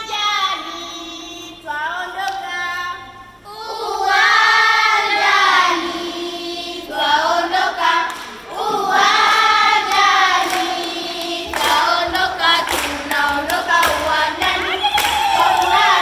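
Children's choir singing together in long, held phrases with short breaks between them. In the second half, rhythmic hand clapping joins the singing.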